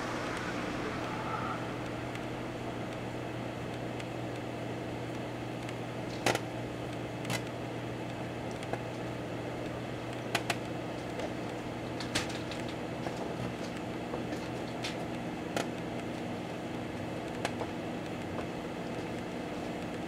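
Microwave oven running with a steady hum while a clock radio burns inside it. Several sharp pops and crackles come from the burning radio, scattered from about six seconds in.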